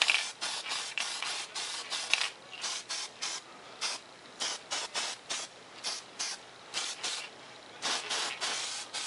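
Aerosol spray paint can sprayed in a series of short hissing bursts, stopping and starting about twice a second, with a longer burst near the end, as paint goes onto a foam model airframe.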